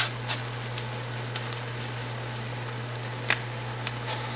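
Ground beef sizzling as it fries in a stainless steel pot, with a few short clicks.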